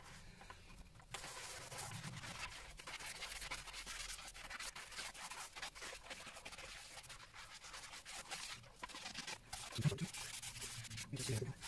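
Kitchen scouring pad scrubbing the wet slate case of a clock: a steady run of quick back-and-forth rubbing strokes.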